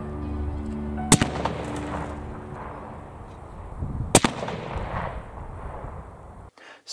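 Two rifle shots about three seconds apart, each a sharp crack followed by an echo dying away over a second or two: a Savage Impulse Elite Precision bolt-action rifle firing .308 Winchester.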